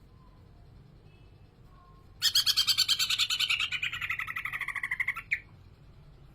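Green leafbird (cucak ijo) singing: after a couple of faint soft notes, a loud, fast run of repeated notes, about ten a second, falling in pitch over about three seconds and stopping abruptly.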